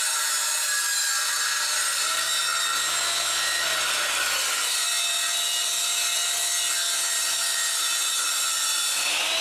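Power saw cutting through a plywood floor layer, running steadily without a break.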